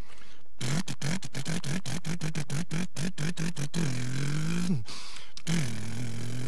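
A puppeteer imitates an old car's rattling engine with the voice: a sputtering put-put of about eight beats a second, then a rising revving drone that cuts off sharply, and near the end another steady engine drone.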